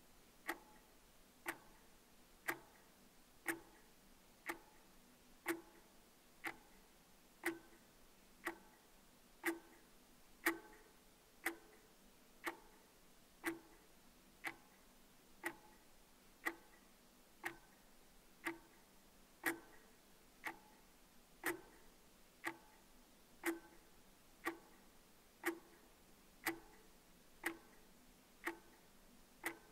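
Wall clock ticking steadily, one crisp tick each second; the clock is built into a clay roof tile.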